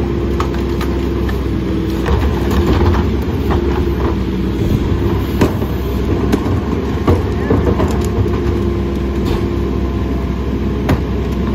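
Mack LE rear-loader garbage truck running steadily with a low drone and a steady hum, with scattered knocks and clatter as wheeled trash carts are tipped into its rear hopper by hand.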